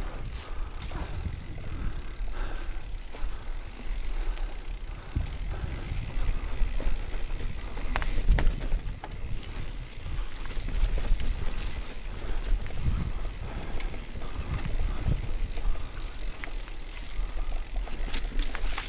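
Mountain bike riding down a dirt forest trail: tyres rumbling over the ground, with sharp rattles and knocks from the bike over bumps, the strongest about eight seconds in.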